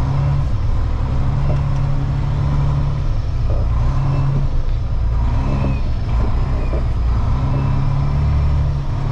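Freightliner day-cab semi truck's diesel engine running as the truck drives slowly, heard from inside the cab. The low engine rumble rises and falls several times.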